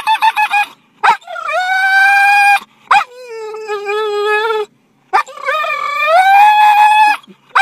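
English springer spaniel, worked up at seeing squirrels, giving a quick run of yips and then three long howls, each opening with a sharp yelp. The first and last howls slide up in pitch and then hold; the middle one is lower and sags slightly.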